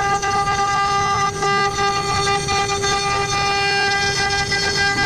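CNC router spindle running with a steady high whine while its bit cuts into wood, with a rough grinding noise underneath.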